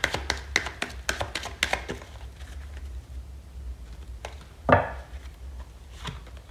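Tarot cards shuffled by hand: a quick run of light clicks, about five a second, for the first two seconds, then quieter handling. Just under five seconds in there is one loud knock on the table, and a lighter tap a little after six seconds.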